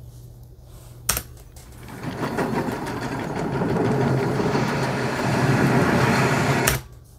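Movie-scene audio of a blacksmith's shop: a dense mechanical rattling clatter that builds from about two seconds in and cuts off suddenly near the end as playback stops. A single sharp click comes about a second in.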